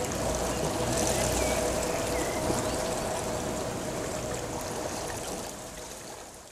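Flowing stream water rushing steadily, fading out over the last couple of seconds.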